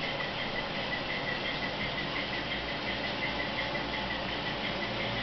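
Steady engine sound from the sound decoder of a DCC-equipped HO-scale model locomotive, running without change, with a faint high ticking repeating several times a second.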